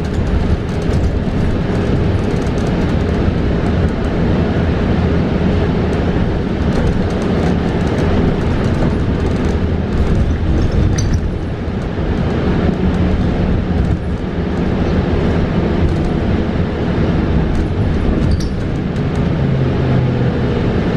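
Cabin noise aboard a 2022 New Flyer Xcelsior XE40 battery-electric bus under way: steady road and tyre rumble with body rattles, and a faint whine falling in pitch near the end.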